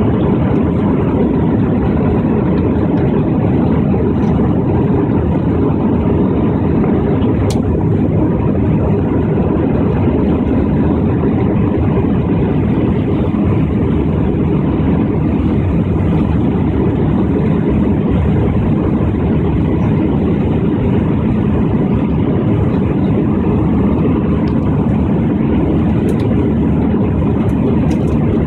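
Airliner cabin noise during the climb after takeoff: the jet engines and rushing air make a steady, even low rumble that does not change.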